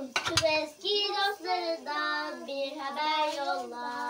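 A young girl singing a children's song, holding each note and stepping the tune from note to note. A couple of sharp clicks come right at the start.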